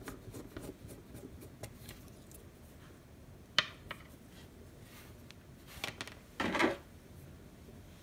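Small handling noises of a circuit board and wire being picked up and turned in the fingers on a wooden desk: faint ticks, one sharp click about three and a half seconds in, and a brief scrape-rustle a little after six seconds.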